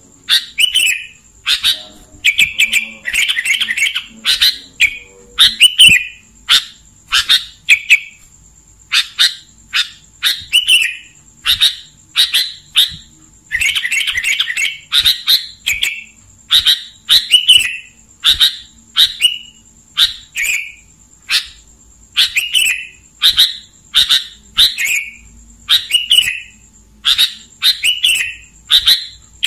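Sooty-headed bulbul (kutilang) singing: a steady string of short, clear, sharply falling notes, about one to two a second, with two runs of quicker chattering notes, the first soon after the start and the second about halfway through.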